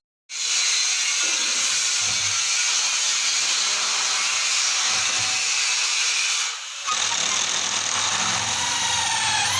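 An electric power tool running steadily as it works wood. It dips briefly about six and a half seconds in, then runs on.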